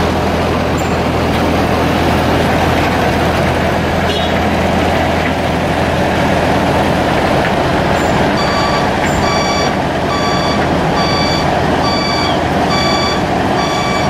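Sumitomo HA60C asphalt paver's diesel engine running steadily with a dump truck at work alongside. From about eight seconds in, a back-up alarm beeps about three times every two seconds.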